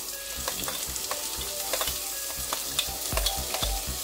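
Spoon clicking and scraping on steel as chopped capsicum is tipped from a steel plate into a pressure cooker, over a steady sizzle of onion and ginger-garlic paste frying in the pan. A few dull knocks come near the end.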